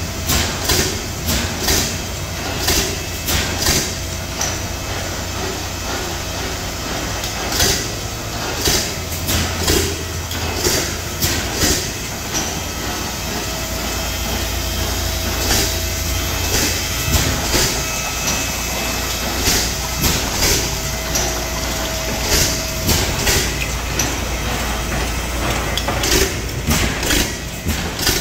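15 hp Pattin Bros. Ekonomy stationary gas engine running, with groups of sharp firing beats a few to the second, separated by stretches of a few seconds with fewer beats, over a steady low rumble.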